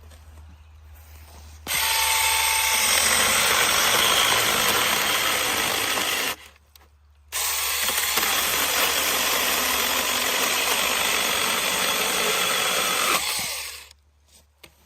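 Cordless 6-inch electric mini chainsaw running in two long bursts, stopping for about a second partway through.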